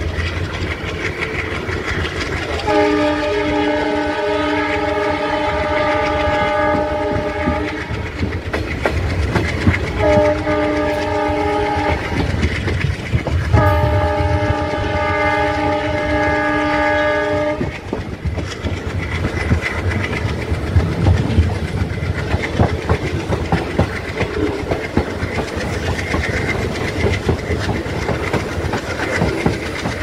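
Alco WDM3A diesel locomotive's horn sounding three blasts, a long one about three seconds in, a short one and then another long one, over the steady rumble and wheel clatter of the moving train.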